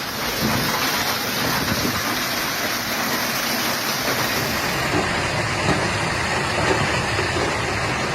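Heavy storm rain pelting down in a steady, dense hiss.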